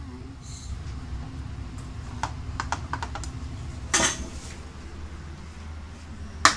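A few light clicks, then a louder clatter about four seconds in and a sharp knock near the end, as kitchenware is handled, over a steady low hum.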